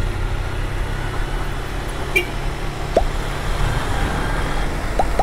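Honda Fan 160 motorcycle's single-cylinder engine running steadily on the move, with wind and road noise on a helmet-mounted microphone.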